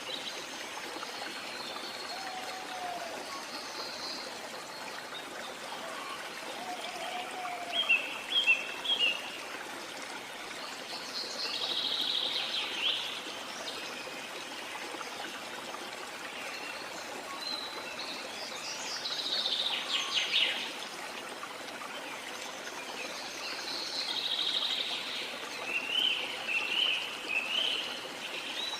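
Steady running water with small birds chirping over it in short bursts, four or five times.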